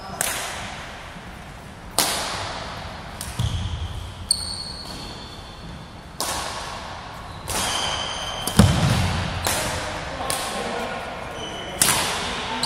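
Badminton rally: about seven sharp racket hits on a shuttlecock, a second or two apart, each ringing in the hall's echo. Short squeaks of court shoes on the wooden floor and a few heavy footfalls come between the shots.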